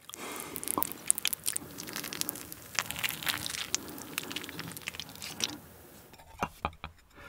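Melted Swiss raclette cheese scraped with a long knife off a half wheel and dropped onto stir-fried pork tripe in a griddle pan: a steady crackle with many small clicks and scrapes. It eases off about five and a half seconds in, leaving a few soft clicks near the end.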